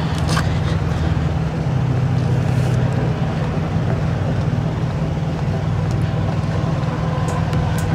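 Semi truck's diesel engine idling: a steady low rumble.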